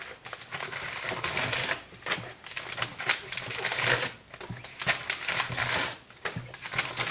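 Paper from old book pages being torn and crumpled by hand, irregular bursts of crackling rustle.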